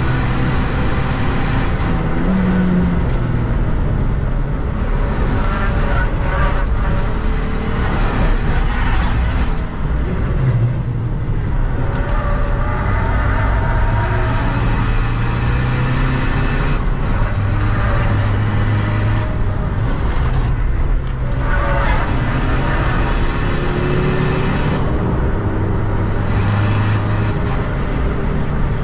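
A Seat Ibiza FR's 2.0 TDI four-cylinder common-rail diesel, heard from inside the cabin while driven hard on track. The engine note steps up and down in pitch several times with throttle and gear changes.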